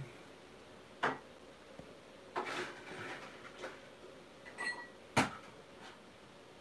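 Fingertips tapping on the recording device's touchscreen and case: a few sharp taps with handling rustle between, and a short high beep near the end.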